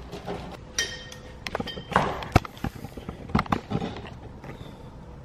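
Hand work on a car's trim as a video cable, taped to a hooked wire and slicked with silicone lube, is forced through a tight passage: a brief squeak, then a cluster of sharp knocks, clicks and rubbing over a couple of seconds, then quieter handling.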